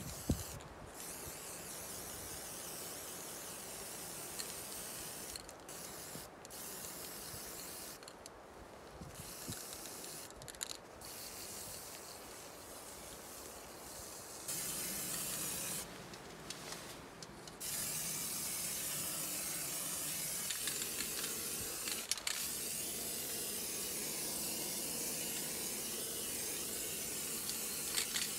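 Aerosol spray paint can hissing as paint is sprayed onto a stove's flexible chimney pipe, in bursts with short breaks over the first two-thirds, then in one long, louder steady spray near the end.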